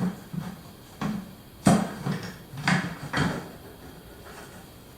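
A 3D-printed pulley with no bearing being worked under a load of about 15 pounds: five or six irregular knocks and rubs, roughly one every half second to a second.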